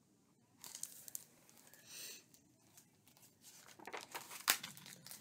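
Paper pages of a picture book being turned: soft rustling and crinkling in a few short spells, busiest near the end, with a few light taps as the page is handled.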